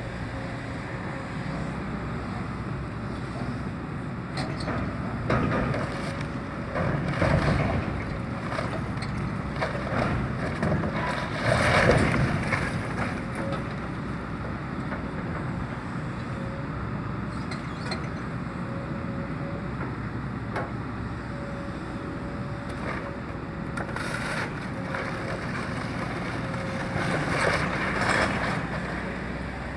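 Excavator engine running steadily while it demolishes a temporary building, with loud crunching and clattering of debris in several bursts, the loudest about twelve seconds in.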